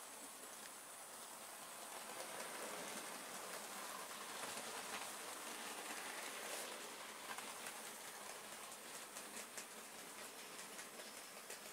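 Model steam locomotive (Bachmann LNER Robinson O4) running on the layout's track with a train of loaded wagons: a steady rolling rattle of wheels on rail that swells as it passes close, about midway, and then eases, with light clicks over the rail joints later on.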